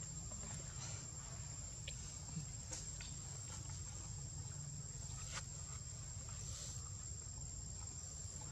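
Steady high-pitched insect drone over a low outdoor rumble, with a few faint ticks and rustles of dry leaf litter.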